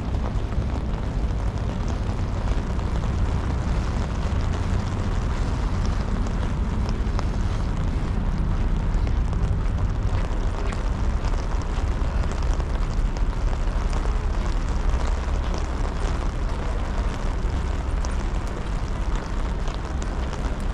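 Wind buffeting an action camera's microphone: a steady low rumble that swells and eases, with a faint hiss above it.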